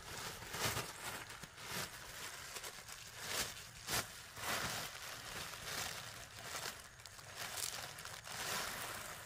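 Thin plastic bag crinkling and rustling in irregular bursts as it is handled and opened.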